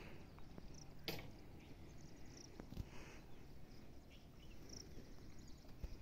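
Faint rural outdoor ambience: a sharp knock about a second in and a few short, high chirps scattered through.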